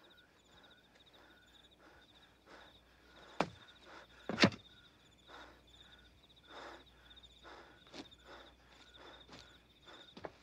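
Crickets chirping steadily at night, with soft footsteps in loose plowed soil. A few seconds in come two sharp thuds about a second apart, the second and louder one as a shovel blade is driven into the earth.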